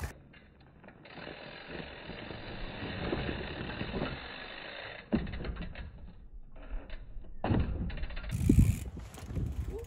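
Trials bike rolling over gravel and hopping up onto a stack of wooden pallets: tyre and drivetrain noise with scattered knocks, then a heavy low thump near the end as it lands on the pallets.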